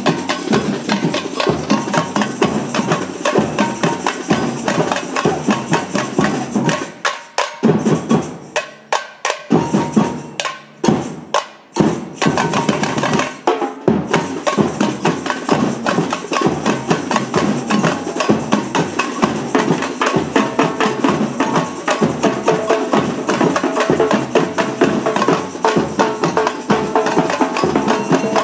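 Batucada samba percussion band playing a fast, steady rhythm, with tamborims struck with sticks and drums. About seven seconds in the groove thins to sparse, separated accented hits with short gaps, and the full band comes back in about halfway through.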